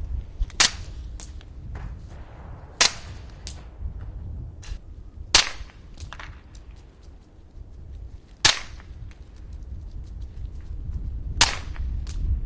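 PSS silent pistol firing single shots: five sharp, light cracks spaced about two and a half to three seconds apart, with fainter clicks between them over a low background rumble.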